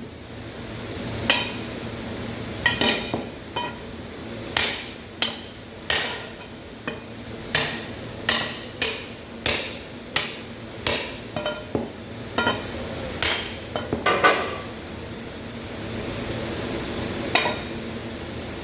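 Hammer striking steel: irregular sharp blows, roughly one or two a second, some with a short metallic ring.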